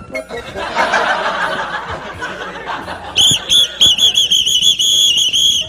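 Laughter, then from about three seconds in a shrill whistle blown in quick repeated blasts.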